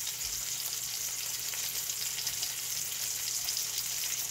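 Salmon fillets frying in oil in a nonstick pan, a steady sizzle with fine crackling.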